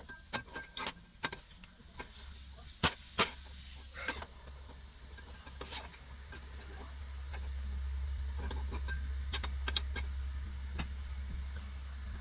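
Small parts and tools clicking and knocking during bench work, with a low rumble that builds through the second half and stops suddenly at the end.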